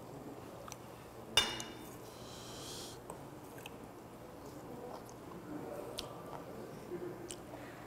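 A metal spoon knocks once against a stainless steel bowl of bibimbap about a second and a half in, with a short bright ring, then scrapes through the rice as it scoops. Faint chewing follows as the spoonful is eaten.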